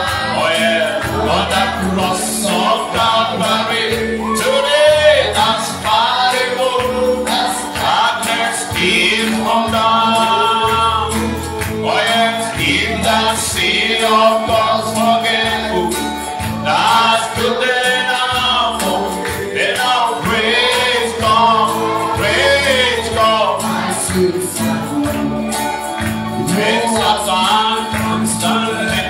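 Gospel worship song sung by a group of singers, with a bass line moving under the melody.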